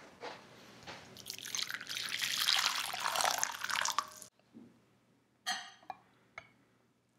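A chewy chocolate chip cookie being slowly pulled apart: a crumbly, crackling tear that builds and stops suddenly about four seconds in. Then a glass mixing bowl is set down with a short ringing clink, followed by a couple of light taps.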